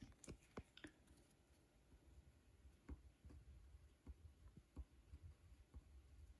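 Near silence, with faint scattered ticks and scratches of a ballpoint pen writing on paper and a few slightly stronger knocks within the first second.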